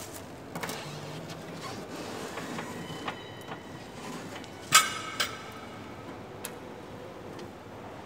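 A sharp metallic clank with a short ring about halfway through, followed half a second later by a lighter knock, among scattered light clicks and handling knocks.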